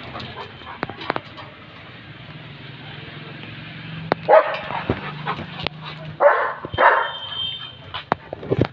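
German Shepherd barking three times, about four, six and seven seconds in.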